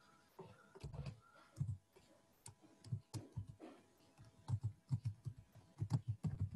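Typing on a computer keyboard: quiet, irregular keystrokes, spaced out at first and coming faster near the end.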